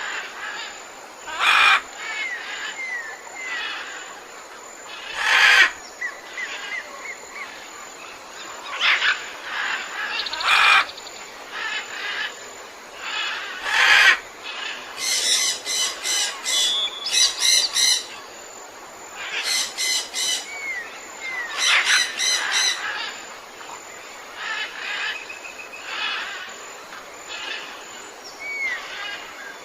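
Birds calling: loud harsh calls every few seconds, quick rattling runs of repeated notes, and short down-slurred whistles.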